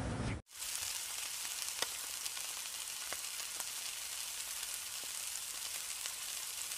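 Fish sizzling on a hot metal tray with no oil: a steady hiss with scattered sharp pops.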